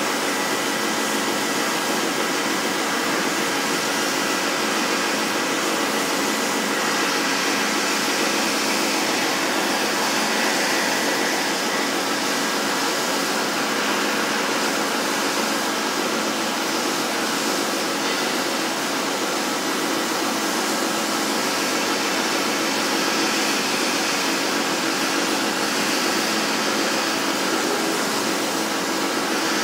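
Large CNC gantry plasma cutter cutting thick steel plate: the plasma arc gives a steady hiss with faint steady tones underneath.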